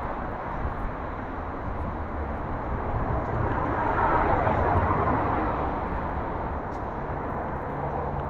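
Outdoor road traffic noise: a vehicle passes, swelling to its loudest about four seconds in and then fading.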